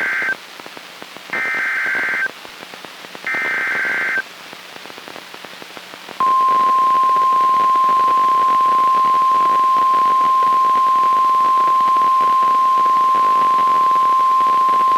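NOAA Weather Radio Emergency Alert System SAME header, heard as three bursts of warbling digital data about a second apart, the first already under way. Faint radio hiss follows, then about six seconds in the steady single-pitch 1050 Hz warning alarm tone comes on and holds for about nine seconds. The tones announce a special marine warning.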